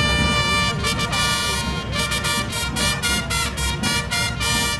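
A herald trumpet fanfare: one long held note, then a run of short repeated notes.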